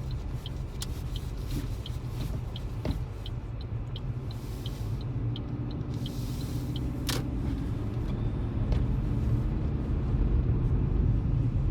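Heavy, steady low road and engine rumble heard from inside a car driving on snowy roads. Over it runs a light, regular ticking, about three ticks a second, which stops about seven seconds in.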